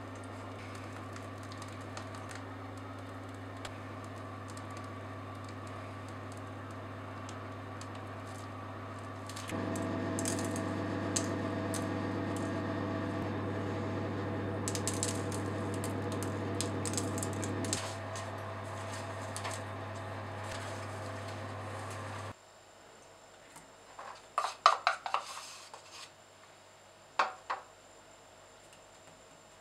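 Sugar sprinkles scattered over piped meringues, landing on the parchment and the metal tin in fine ticking patters, over a steady low hum that cuts off suddenly about two-thirds of the way through. Near the end, a spoon clicks several times in quick succession, then once more.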